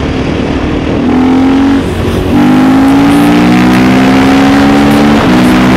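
KTM 450 EXC's single-cylinder four-stroke engine running under throttle while riding. It gets louder about a second in and again about two seconds in, and its note breaks off briefly twice, about two seconds in and near the end, before picking up again.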